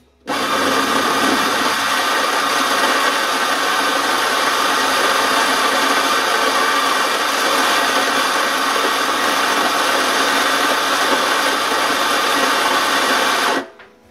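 Cunill Tranquilo coffee grinder running steadily as it grinds home-roasted beans for an espresso dose. It starts just after the beginning and cuts off sharply near the end.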